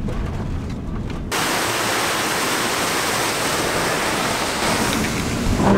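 Low rumble of a van driving on a gravel road. About a second in it switches suddenly to the steady rush of a small waterfall cascading down a rocky creek bank.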